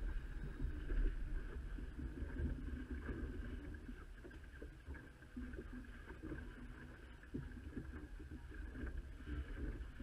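Water washing and splashing along the hull of a small sailing boat, a Shrimper 19, under way under sail, with a low rumble of wind on the microphone and scattered small knocks.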